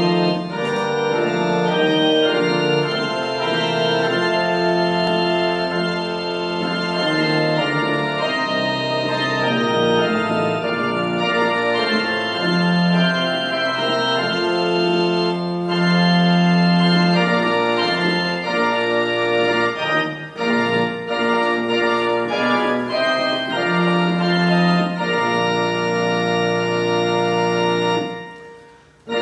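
Casio Privia digital piano played with an organ sound, holding slow sustained chords of a processional hymn tune. The chords die away near the end.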